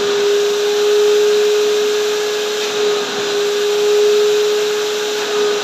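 Drum-type canister vacuum cleaner running with a steady whine over a hiss of rushing air, its upholstery nozzle drawn across fabric sofa cushions. The loudness swells a little now and then as the nozzle moves over the cushion.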